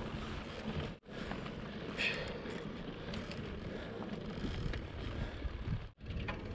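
Steady wind and road noise of a mountain bike ride, with the wind rushing over the microphone. It cuts out for an instant twice, once about a second in and once near the end.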